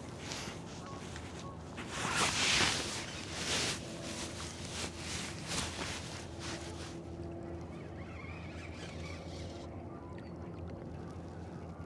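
Boat motor running at a steady idle, with a louder rushing of water or wind about two seconds in.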